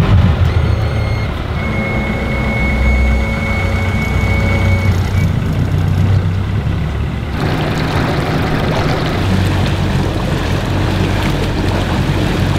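Panga's outboard engine running with a steady low hum, and for a few seconds near the start a steady high beep. About seven seconds in the sound changes suddenly to the boat under way: engine hum with a broad rush of water.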